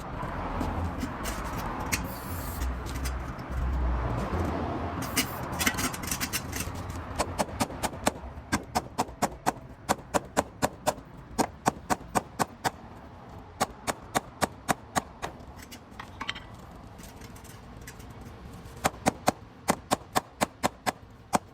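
Hand tools working on a moped: a stretch of rough rubbing and scraping noise, then long runs of sharp metallic clicks or taps, about three to four a second, stopping and starting again near the end.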